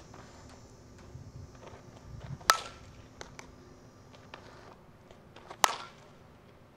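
Softball bat striking a tossed softball twice, about three seconds apart: two sharp cracks, each with a brief ring.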